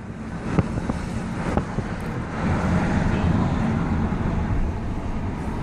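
2014 Ford Focus driving, its engine and road noise running steadily, with two short clicks in the first couple of seconds. No clear whistle from the aftermarket exhaust whistle comes through.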